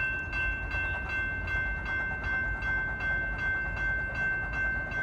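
Railroad grade-crossing bell ringing in steady, even strokes about two and a half times a second, warning of an approaching train, over a constant low rumble.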